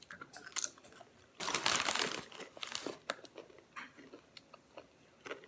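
Crunchy pretzels being chewed, in short scattered crunches, with a plastic snack bag crinkling loudly for about a second and a half near the middle.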